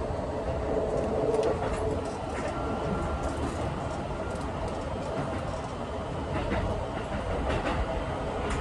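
Keikyu 1000 series electric train running, heard from the driver's cab: a steady rumble with the hum of its traction motors and Siemens IGBT inverter, and scattered clicks of the wheels over rail joints.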